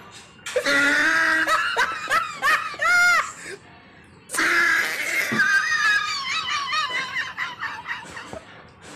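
A woman laughing in two long bouts. The first ends in a high squeal about three seconds in; the second starts about a second later and fades out near the end.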